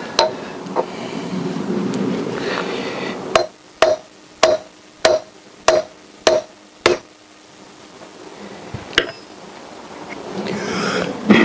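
Hammer striking an old socket to drive a new rear wheel bearing into a 1988 Honda CBR1000F's wheel hub. About a third of the way in come seven sharp metallic strikes, roughly two a second, each with a brief ring.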